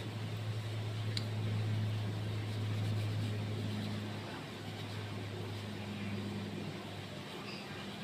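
Steady low mechanical hum of a running motor, swelling slightly about two seconds in and easing after.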